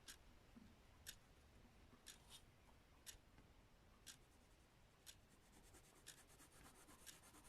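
Near silence, with faint sounds of drawing on paper and a soft tick about once a second.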